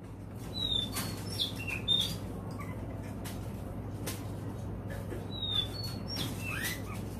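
Oriental magpie-robin giving short, scattered whistled notes, several sliding down in pitch, with a few sharp clicks and a steady low hum underneath.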